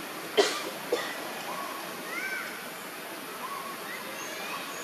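Forest background hiss with a few short, arched chirping animal calls, and two sharp snap-like sounds about half a second and a second in, the first the loudest.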